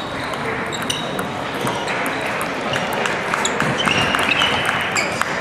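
Celluloid-style table tennis balls ticking on tables and bats around a large hall: many quick, irregular sharp taps from the rallies going on, denser in the middle.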